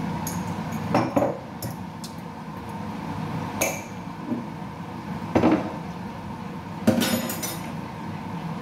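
A metal utensil clinking and knocking against cookware: single sharp strikes a second or two apart, then a quick run of clinks near the end.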